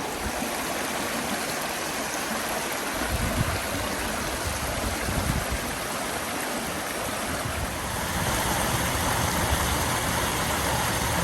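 Passage Creek rushing over small cascades: a steady, even rush of flowing water. A low rumble joins about three seconds in, and the water gets a little louder about eight seconds in.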